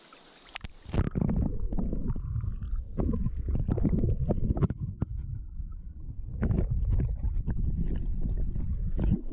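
Insects buzz for about a second, then cut off suddenly as the camera goes under the water. After that comes a loud, muffled underwater rumble and sloshing, with scattered knocks and clicks, as hands hold a fish in the shallow stream.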